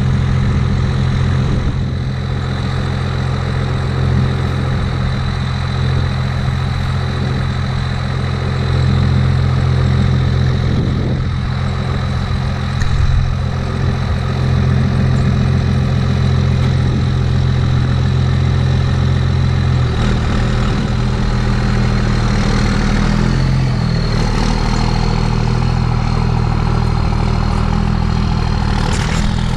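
Pickup truck engine running steadily, idling and then pulling away at low speed, with a shift in the engine note about two-thirds of the way through.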